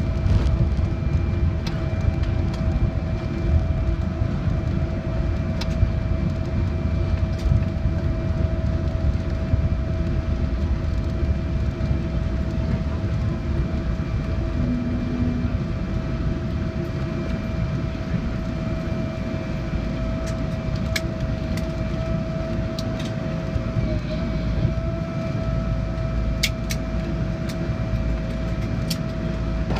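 Cabin noise in a Boeing 777-300 slowing on the runway after touchdown and turning off toward the taxiway: a steady rumble from the wheels and airflow, with a steady whine over it and a few light clicks in the second half.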